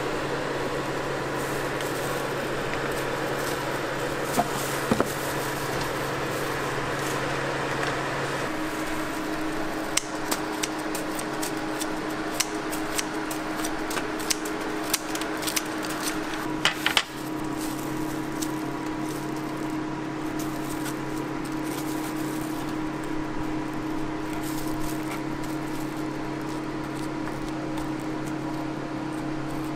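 Steady electric hum of kitchen appliances with a few held tones. Between about ten and seventeen seconds in, a run of sharp clicks and snips from kitchen scissors cutting the edge of a cooked waffle.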